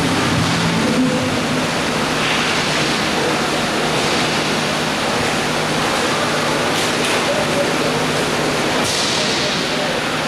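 Steady rushing noise of inline roller hockey play, with a few brief sharper high sounds about two, seven and nine seconds in.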